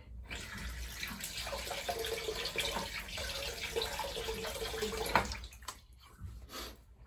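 Bathroom tap running into the sink, water splashing steadily for about five seconds, then stopping with a short knock.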